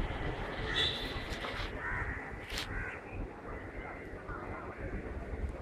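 Crows cawing: several short, separate caws over a faint steady background hum.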